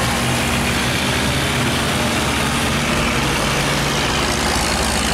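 Wooden fishing boat's engine running steadily at a low pitch, over the rush of churning, turbulent water.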